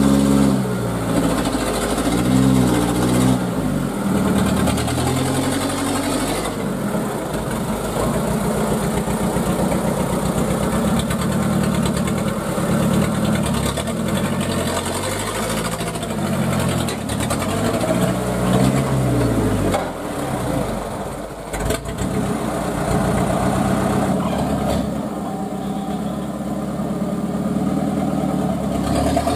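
Truck engine under heavy load, revving up and falling back again and again as the truck churns through deep mud. Near the end of the second third there is one short knock.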